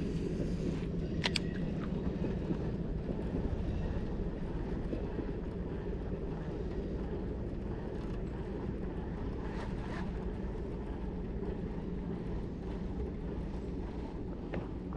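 Steady low rumble of wind and moving water around a small boat on the river, with a few faint clicks about a second in.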